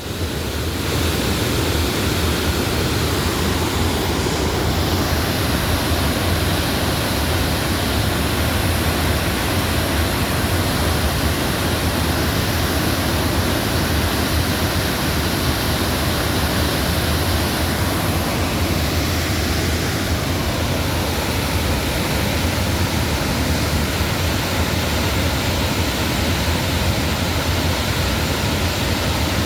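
A large waterfall rushing: a steady, unbroken wash of falling water, heavy in the low end.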